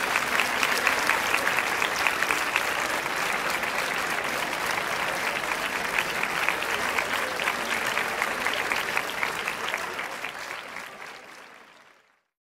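Crowd applauding, many hands clapping densely, fading out over the last couple of seconds.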